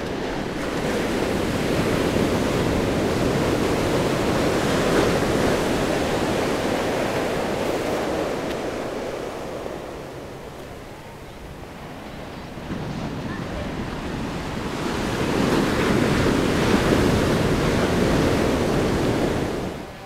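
Ocean waves breaking beside a rock jetty and washing up the beach, with no tone to it, in two long surges: the first fills most of the first half, and the second builds about fifteen seconds in after a short lull.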